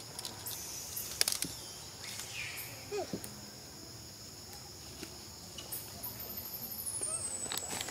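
Forest insects droning steadily at a high pitch, with a few sharp clicks scattered through. Near the end a fast pulsing trill slides downward in pitch.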